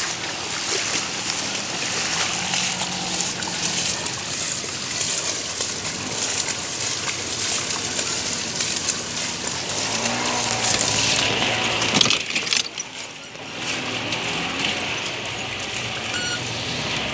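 Noise of moving through shallow floodwater, with splashing and wind on the microphone, joined in the second half by a small engine running and a short break in the sound about thirteen seconds in.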